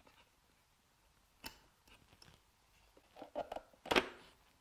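Scattered light clicks and knocks from hand reassembly of a Rehau Re.Guard shut-off valve, the loudest a sharp click about four seconds in as the white plastic cover is pressed down onto the valve body.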